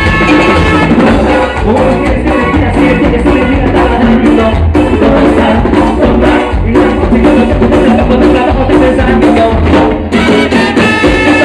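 Live Latin dance band playing loudly, with sung vocals over a steady drum beat.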